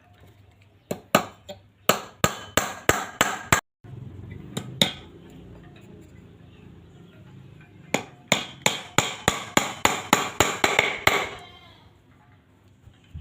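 Hammer blows in quick runs: about nine strikes, a brief pause with two more, then a longer run of about a dozen at roughly three to four a second. This is hammering during work on a homemade egg incubator.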